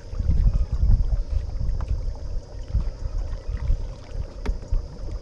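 Small plastic fishing boat under way on the water, with wind buffeting the microphone in an irregular low rumble that is strongest in the first second or so. A faint steady hum runs underneath.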